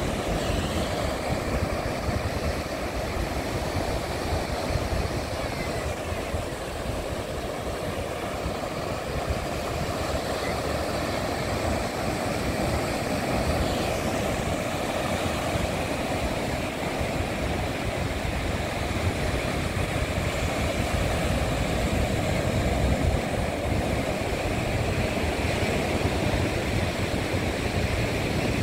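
Ocean surf washing steadily onto a sandy beach, with a constant low rumble beneath it.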